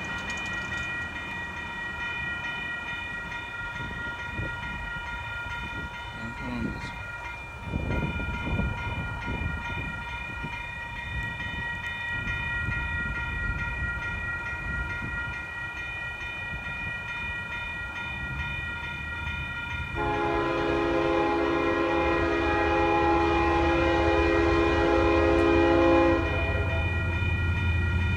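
Railroad crossing warning bell ringing steadily. About twenty seconds in, the approaching BNSF locomotive sounds its air horn, a loud multi-note chord held for about six seconds over a rising low rumble. The horn breaks off shortly before the end.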